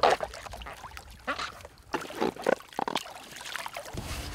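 Water splashing and dribbling in a few short, irregular splashes around a person entering the sea.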